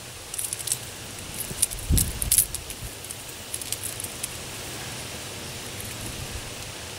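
Light metallic clinks and jingles of a Rapala Broken Back Minnow's treble hooks and split rings, shaken as the lure is handled and tied onto the line. There is a dull bump about two seconds in, and the clinking stops after about four seconds, leaving a steady faint hiss.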